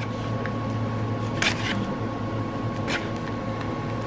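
Scissors cutting into a plastic package: two short, crisp sounds, about a second and a half in and again near three seconds, over a steady low hum.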